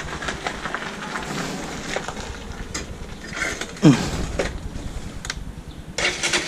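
Motorcycle being walked along a gravel path: its tyres crunch and rattle over the loose stones, with a short falling squeal about four seconds in and a louder rush of noise just before the end.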